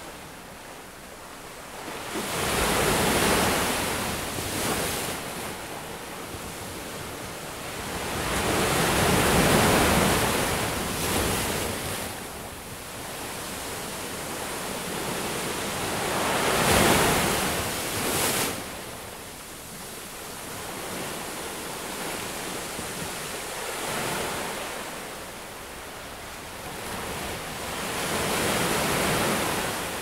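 Ocean surf breaking and washing up a beach: each wave builds, crashes and fades, about every six to eight seconds, the loudest one just past the middle.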